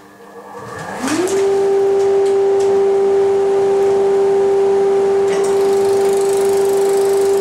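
An electric workshop motor starting up: a hum that climbs in pitch for under a second, then holds one steady pitch as the machine runs.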